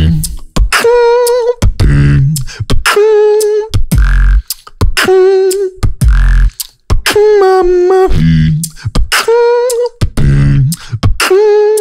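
Solo vocal beatboxing into a microphone: deep kick drums and sharp snare and click sounds alternate with held, buzzy pitched tones that waver slightly, in a phrase that repeats about every two seconds.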